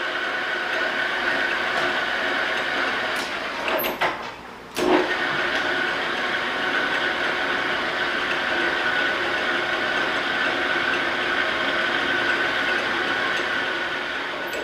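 Victor metal lathe running steadily with a high whine while it takes a finishing pass on power feed along a drill-rod part. About four seconds in the spindle stops after a few clicks of the controls, then restarts with a clunk under a second later as the feed is reversed to run the tool back.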